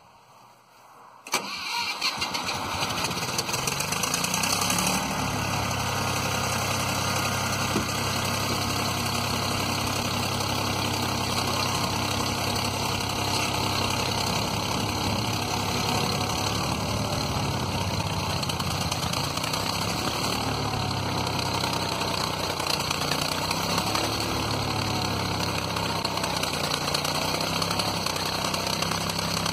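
Old Ford 3500 tractor's engine starting suddenly about a second in, then settling into a steady idle.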